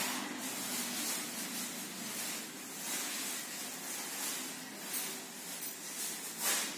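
Steady hiss with a faint low hum: room tone, with a brief louder rush of noise near the end.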